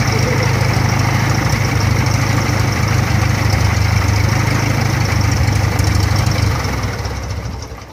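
Cessna 172's piston engine idling close by with the propeller turning, a steady low drone, then dying away over the last second or so as the engine is shut down after taxiing in.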